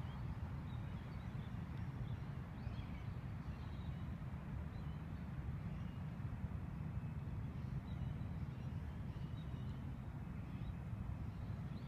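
Outdoor ambience: a steady low rumble of light wind on a phone microphone, with a few faint bird calls.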